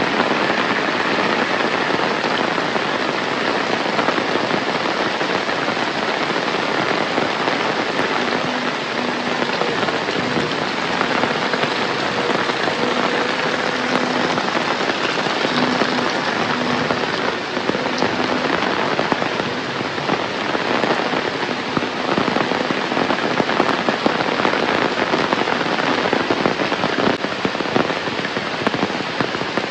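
Heavy rain falling steadily, a dense patter of countless drops striking the surfaces around.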